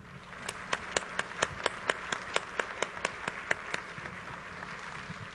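Audience applauding, with one pair of hands close by clapping loudly and evenly, about four claps a second; the close claps stop about four seconds in while the softer applause carries on.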